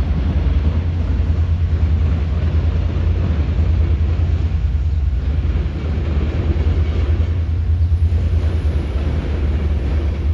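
Diesel locomotive of a CPKC yard job running while switching cars: a steady, deep rumble.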